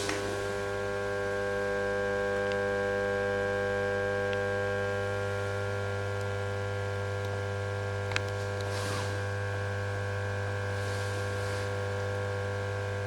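Steady electrical hum from an old floodlight running an 80-watt street light bulb, a low buzz with many overtones typical of a lamp ballast. A single small click about eight seconds in.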